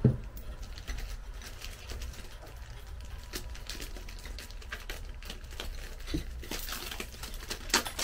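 Scattered light clicks and taps of metal shelf parts being handled and fitted together, with a dull thump at the start and a cluster of sharper clicks near the end.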